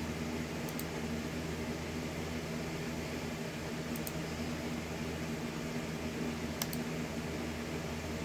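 Steady low hum with hiss, a background drone of machine or electrical noise, with three faint short clicks spread through it.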